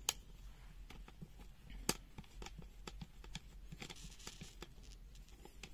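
Plastic multimeter housing being handled and opened: light plastic taps and ticks with a little rustling, and two sharper clicks, one at the very start and one about two seconds in.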